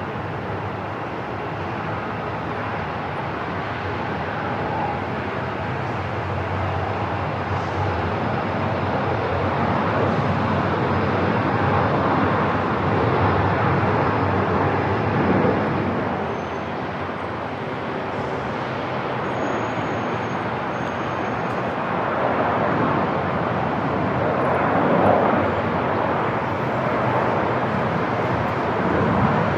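Airport ambience: a steady wash of aircraft engine noise that grows louder towards the middle, eases off, then swells again near the end.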